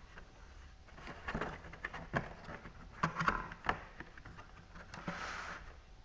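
Cardboard box being handled and turned over by hand: irregular taps, knocks and rustles, with a short scraping slide about five seconds in.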